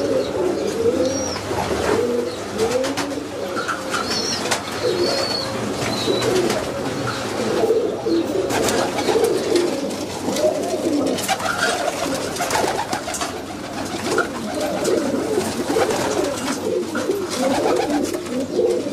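A loft full of Sialkoti high-flying pigeons cooing, many birds at once in a dense, overlapping, unbroken chorus. Scattered light clicks and a few thin high chirps come through in the first part.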